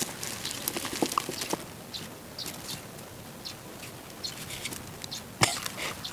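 Hand weeder digging and scraping in compacted soil to lift leeks, with scattered clicks and crumbling soil pattering down, and one louder knock about five seconds in.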